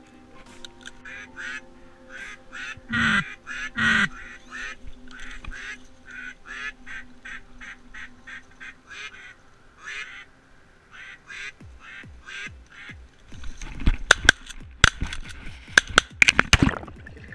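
A long series of short, evenly spaced duck quacks, loudest about three and four seconds in. Near the end comes a quick cluster of sharp knocks and rustles.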